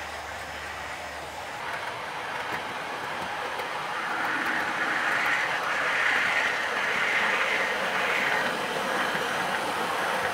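Model train running on the track: the whirr of the locomotive's motor and the rattle of wheels over the rails, growing louder from about four seconds in as the locomotive and its parcels vans pass close by.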